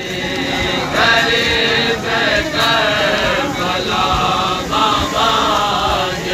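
Group of men chanting a noha, the Shia mourning chant, together in long held phrases.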